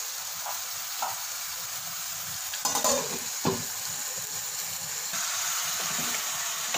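Chicken frying in oil with a steady sizzle. About three seconds in, a steel lid clatters and clicks down onto the pan. From about five seconds the sizzle gets louder as chicken pieces are stirred in a pan with a wooden spatula.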